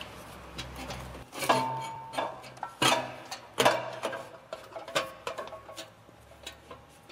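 A 3-inch aluminized steel exhaust pipe clanking and knocking against the fittings about half a dozen times as it is worked into place by hand. One knock, about a second and a half in, leaves a brief metallic ring.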